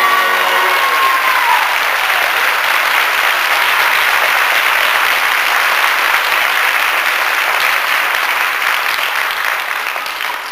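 Theatre audience applauding steadily, easing off slightly near the end. The last held note of the song and pit orchestra dies away in the first second or so.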